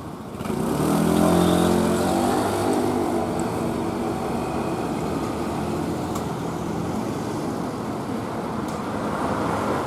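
A motor vehicle's engine running close by, its note loudest about a second in and then easing, over steady street traffic noise.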